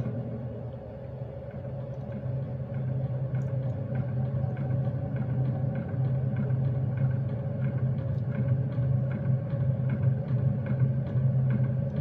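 Steady low electric hum of the Star Wars lightsaber sound effect, used here as the hum of a hologram battery, with faint scattered ticks.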